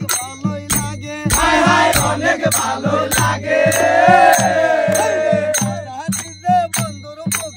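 Background music: a Bengali folk song with a quick, steady drum beat. Voices hold a long, drawn-out sung phrase through the middle, then the beat carries on alone.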